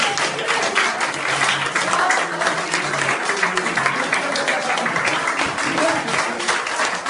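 Audience applauding: many hands clapping in a dense, steady patter, with voices underneath.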